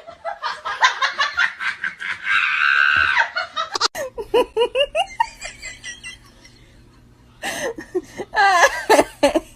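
People laughing in repeated short bursts, breaking off for about a second and a half and then laughing again near the end.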